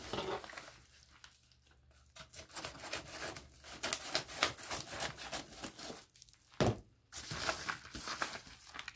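Yellow padded paper mailer being opened with scissors and handled, its paper crinkling and rustling irregularly. A single sharp click about two-thirds of the way through.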